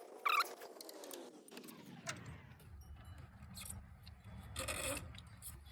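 Light metallic clinks and a short jangling rattle of bolts, bracket pieces and tools being handled, with a louder rattle about four and a half seconds in.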